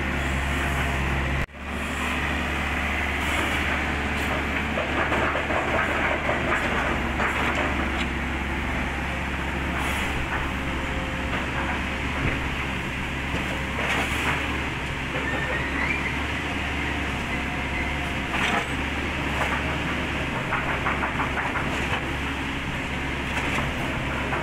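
Kobelco SK50 mini excavator's diesel engine running steadily under load as it crawls up a steel loading ramp, with repeated clanks and knocks from its steel tracks on the ramp.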